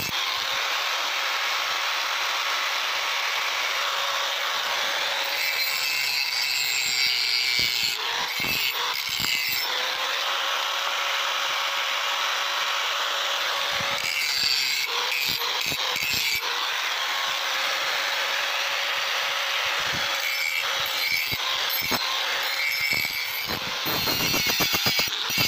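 Handheld angle grinder with an abrasive disc grinding the steel edge of a billhook blade, running steadily, with the grinding growing harsher a few times as the disc bites harder.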